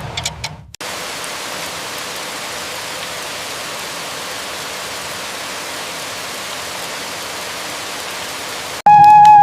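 Steady, even hiss of rain that begins abruptly just under a second in and cuts off suddenly near the end. A flute melody then starts.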